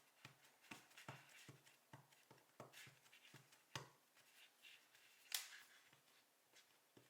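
Faint, irregular taps and clicks of hands working Play-Doh on a tabletop, with one sharper click about five seconds in.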